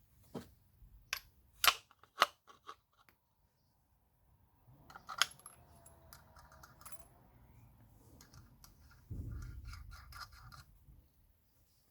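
Small metal parts and tools handled by hand, giving scattered sharp clicks and clinks, with a short low rumble about nine seconds in.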